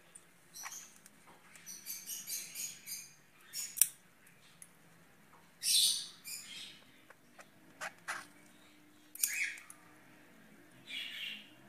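Budgerigar chirping in short high bursts, with a harsh squawk about halfway through and another near the end while it is held. A few sharp clicks, the loudest about a third of the way in, come from a small nail clipper snipping its overgrown beak.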